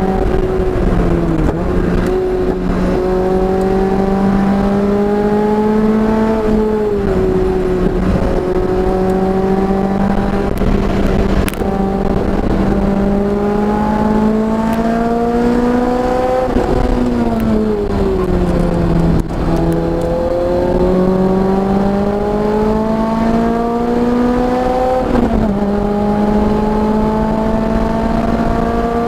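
Car engine on a racing circuit pulling hard, its pitch climbing steadily through long stretches of acceleration. Twice the pitch drops sharply, as at an upshift. In the middle it falls gradually, as when slowing for a corner, before it climbs again.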